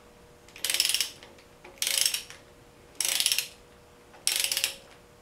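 A socket ratchet clicking in four half-second strokes, about one a second, as it runs down the water pump bolts on a Jeep 4.0 engine block.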